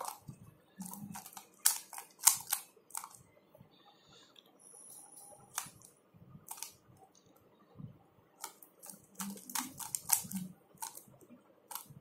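Plastic clicks and clacks of a 3x3 Rubik's cube as its layers are turned by hand, in quick runs of several turns with pauses between.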